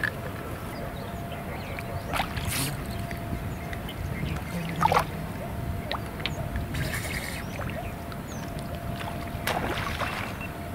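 Lake water sloshing and lapping around people standing waist-deep, with a few short splashy sounds.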